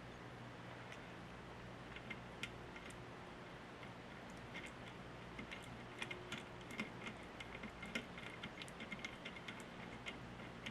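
Scattered light clicks and taps of hand tools and small metal parts being handled while wires are fitted to terminals, irregular and more frequent in the second half, over a steady low hum.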